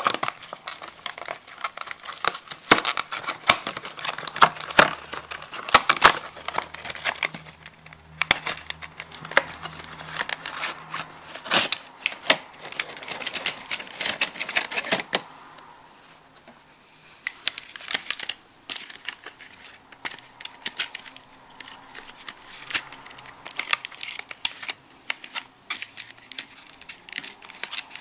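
Puzzle packaging being worked open by hand: dense crinkling, crackling and clicking. It thins out after a short lull about halfway through.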